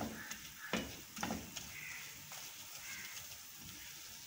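A silicone spatula scraping and stirring a sticky khoya-and-sugar mixture in a non-stick frying pan, a few soft strokes over a faint sizzle. The mixture is cooking on low heat while the water released by the sugar dries off.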